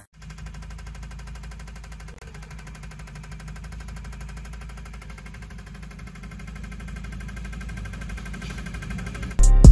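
Fuel injectors from a Toyota 1TR-FE engine pulsing on an injector tester-cleaner bench during a flow test: a rapid, even clicking over a low hum. Loud music with drum beats cuts in near the end.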